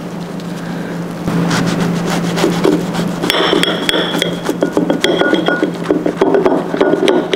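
Clatter of kitchenware: dishes and metal utensils knocking and clinking, some strikes briefly ringing, over a steady low hum. The clatter grows busier about a second in.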